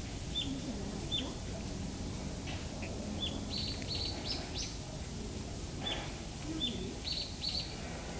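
Small birds chirping: short, high chirps repeated every half second or so, some in quick pairs and runs, over a steady low background hum.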